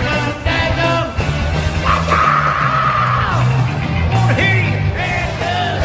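Heavy metal rock music with shouted singing over drums and bass guitar, including one long held high note about two seconds in.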